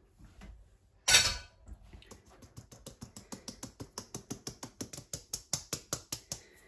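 Flour being sieved: a hand repeatedly taps a stainless steel mesh sieve, making rapid light knocks at about five or six a second to shake the flour through. A single louder knock comes about a second in.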